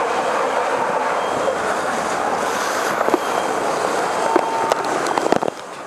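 A structure fire burning inside a house makes a steady rushing noise, scattered with sharp crackles and clicks. A short steady beep sounds about four seconds in.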